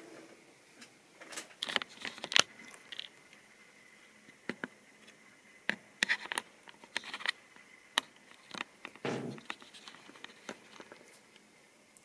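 A model railway locomotive running slowly on sectional track: irregular clicks and scrapes from the wheels, with a faint steady whine through the first half. A longer scrape comes about nine seconds in.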